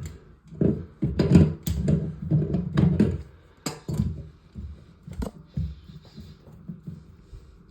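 Handling noises from working on toilet plumbing parts: a quick run of knocks and clicks, busiest in the first three seconds, then scattered single clicks.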